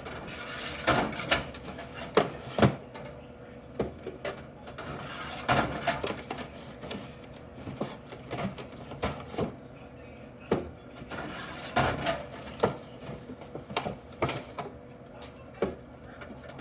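Aluminium drink cans knocking and clinking as they are loaded by hand into a vending machine's drink columns, in sharp irregular knocks a second or several apart.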